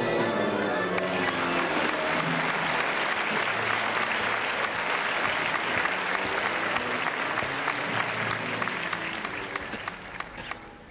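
Audience applause, dense clapping that swells in over the last notes of light music and fades away about ten seconds in.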